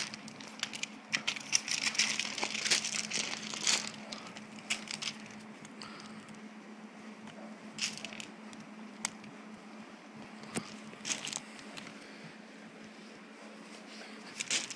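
Dog paws scuffing and crunching on pea gravel and flagstones while a dog jumps and bites at a braided rope tug toy, the rope rustling. The clicks and scrapes come thick in the first few seconds, then thin out, over a faint steady hum.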